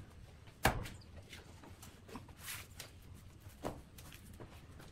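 A few short, sharp knocks and bumps of a heavy wooden log being handled and set onto a wood lathe, the loudest about half a second in and another near the end, over a low steady hum.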